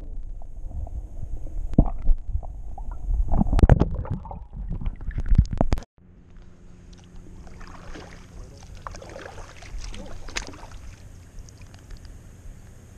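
Muffled underwater rumbling and splashing with sharp knocks while a bass is held in the water for release. About six seconds in it cuts to quieter water sounds of a kayak being paddled: soft swishes of the paddle and lapping water.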